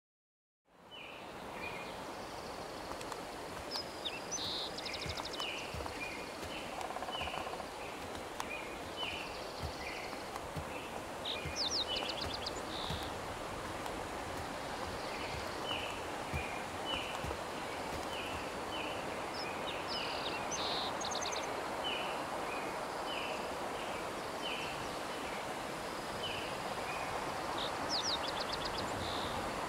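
Outdoor ambience that starts suddenly a moment in: a steady rushing hiss under birds chirping over and over, with a quick high trill every several seconds.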